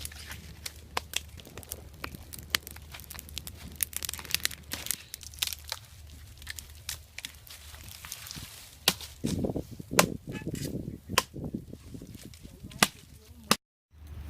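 A run of irregular sharp clicks and cracks, with a cluster of louder, fuller knocks about nine to eleven seconds in.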